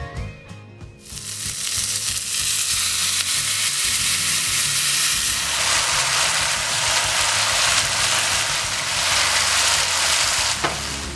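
Sauce sizzling as it is poured over chicken and vegetables in a hot grill pan. The hiss starts about a second in, grows fuller about halfway through, and stops shortly before the end.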